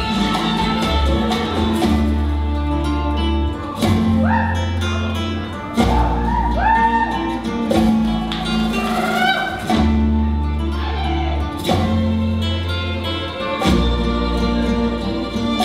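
Mariachi-style Latin music with guitars over a steady, held bass line; about four seconds in, a melodic part starts sliding up and down in pitch for several seconds.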